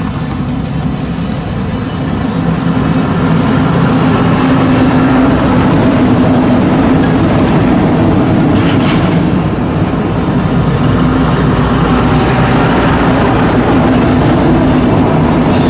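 Diesel engine of a heavy Volvo truck running at low speed as it passes, getting louder a few seconds in.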